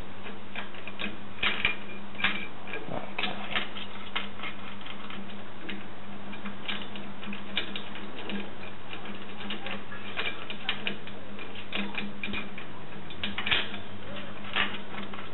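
Irregular light metallic clicks and clinks as a TV antenna's mast clamp and U-bolt are handled and fitted, over a steady low hum.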